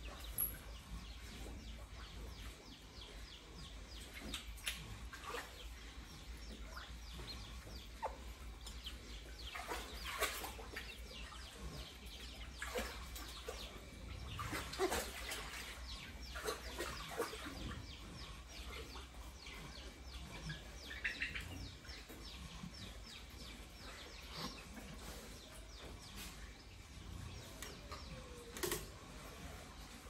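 Chickens clucking and chicks chirping in a pig pen: scattered short calls and clicks, busiest in the middle, over a steady low hum.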